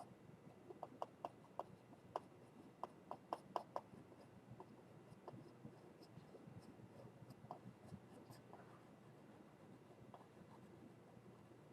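Faint tapping and scratching of a stainless steel stylus drawing on the plastic face of a Boogie Board 10.5 LCD writing tablet, with a quick run of taps in the first few seconds, then sparser strokes.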